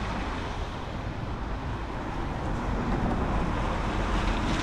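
Road traffic on a wet street: a car drives past, its tyres hissing on the wet tarmac over a steady low rumble.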